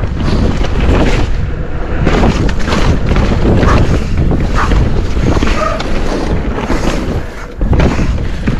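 Wind rushing over an action camera's microphone and tyres rolling over wet dirt during a fast mountain-bike descent, with repeated knocks and rattles from the bike as it goes over bumps. The noise dips briefly near the end.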